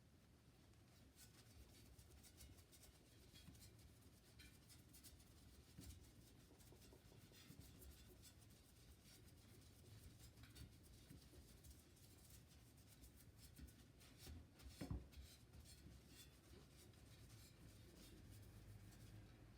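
Faint scratching and rubbing with many small light clicks, the sound of slow hand work in a small quiet room, with one slightly louder low thump about fifteen seconds in.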